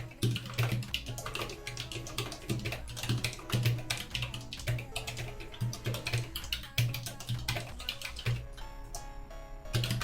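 Fast typing on a Totem split keyboard with low-profile Kailh Choc v1 Pink switches: a rapid, uneven run of key clicks, over background music with a steady beat.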